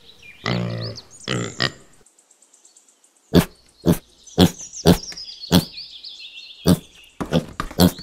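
Domestic pigs grunting. First come two longer, pitched grunts, then after a short pause piglets give short, sharp grunts about twice a second, with birds singing faintly in the background.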